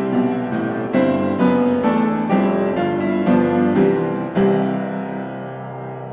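Background piano music: notes and chords struck about twice a second, ending on a chord about four and a half seconds in that is left to fade.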